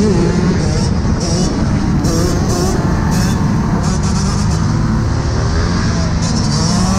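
Dirt bike engines running and revving close by, with heavy wind rumble on the microphone of a camera riding on a moving bike.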